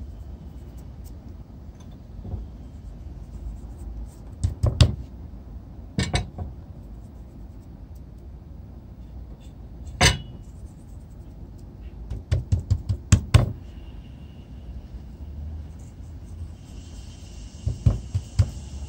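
Scattered sharp taps and knocks from hands working on a bamboo cutting board while a raw salmon fillet is seasoned. They come singly and in quick clusters, the busiest cluster a little past the middle, over a low steady rumble.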